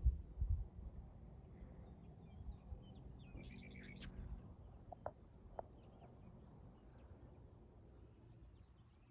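A steady high insect trill throughout, with a short bird call about three and a half seconds in and a few faint chirps after it. Low thumps sound in the first half second.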